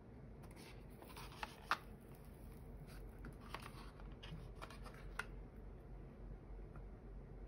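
Faint handling noise of cardboard packaging and a thin hard plastic phone case: scattered small clicks and rustles, mostly in the first five seconds, the sharpest click about two seconds in.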